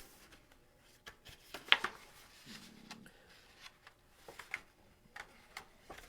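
Paper book pages being handled and turned: soft scattered rustles and taps, the sharpest about two seconds in.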